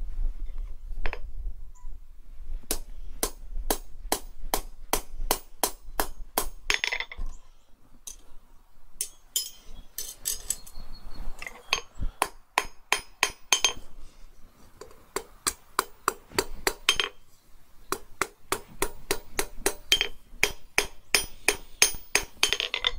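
Blacksmith's hand hammer striking a steel rod on an anvil, in runs of quick blows about three a second with short pauses between, some blows leaving a brief ring.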